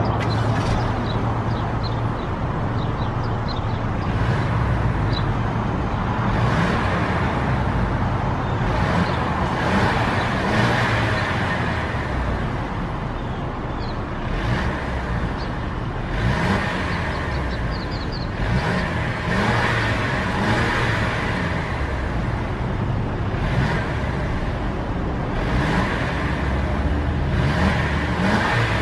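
2017 Mercedes-Benz E300's 2.0-litre turbocharged inline-four running and heard through its exhaust, the note rising and falling several times as the throttle is blipped.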